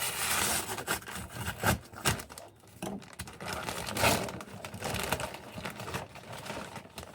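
Shipping package being opened by hand: packaging rustling and crinkling, with irregular clicks and taps.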